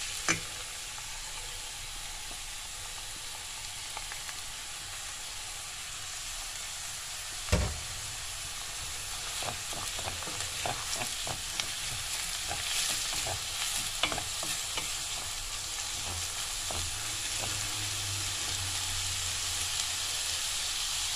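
Chopped onions sizzling in oil in a stainless steel pan, being sautéed as the base of a filling, while a spatula stirs and scrapes against the pan with frequent small clicks. One loud knock comes about seven seconds in, and the sizzle grows slightly louder toward the end.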